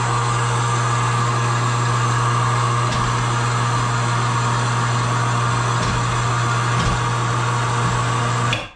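Electric winch on a garage lift running steadily with a constant motor hum, then cutting off abruptly near the end.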